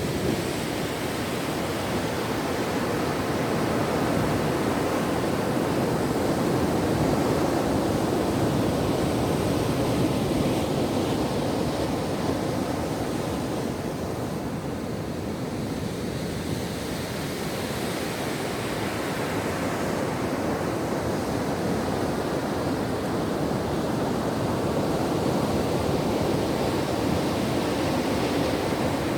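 Ocean surf washing on a shore: a steady rush of wave noise that slowly swells and eases, softest about halfway through.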